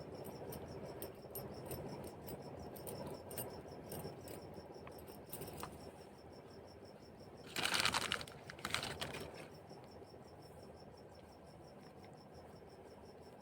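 Faint clicking and tapping of small objects being handled, with one louder rustle about eight seconds in, over a steady high-pitched chirping of crickets.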